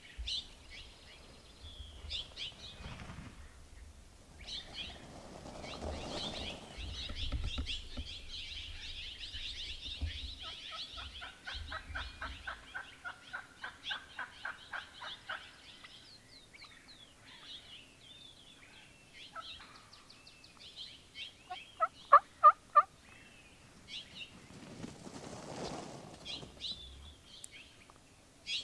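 Gould's wild turkeys calling: a long run of quick rattling notes around the middle, then a burst of four loud, sharp notes a little later, the loudest sound. Small birds chirp high and thin throughout.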